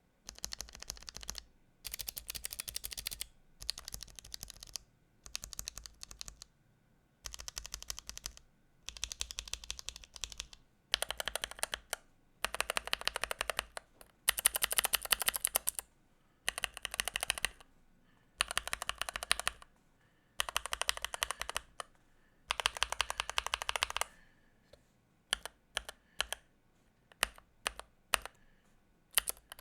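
NuPhy Halo65 mechanical keyboard being typed on fast, in bursts of about a second each with short pauses between them, in a switch sound demo. From about 24 s in there are only scattered single keystrokes.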